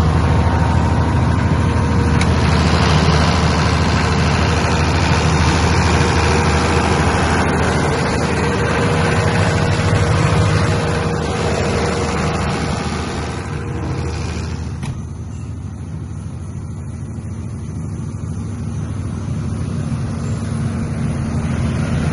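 62.5 kVA diesel generator set's engine running steadily at constant speed, a low even drone with mechanical clatter. About two thirds of the way through the sound turns duller and quieter, then rises again near the end.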